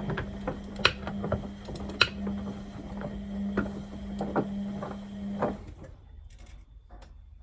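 Beko WMB61431W washing machine running, a steady hum with irregular clicks and knocks, which stops abruptly about five and a half seconds in; a few faint clicks follow.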